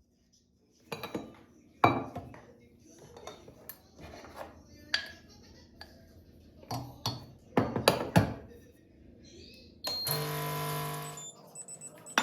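Kitchen work: dishes and utensils knocked and set down in a string of sharp clinks and clacks, then a steady noise lasting just over a second near the end.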